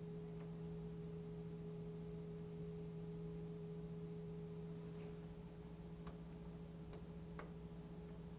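Faint steady electrical hum with a few soft clicks in the second half, from the oscilloscope's controls being switched.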